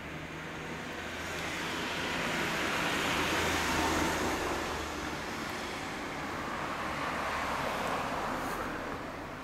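Road traffic passing on the street: a vehicle's noise swells to its loudest about four seconds in and fades away, then a second, smaller swell follows near the end, over a low steady hum.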